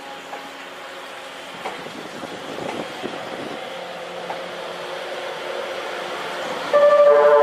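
Train noise growing louder, with a few scattered clicks. About seven seconds in, a loud melody of held notes suddenly begins: the music horn of the E001-series TRAIN SUITE Shiki-shima sounding at departure.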